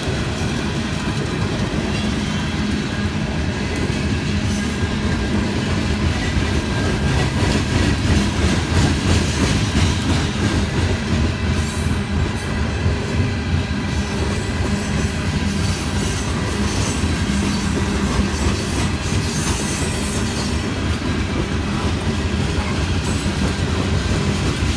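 Norfolk Southern coal hopper cars rolling past close by: a steady rumble and clatter of steel wheels on the rails, with brief higher hissing patches near the middle.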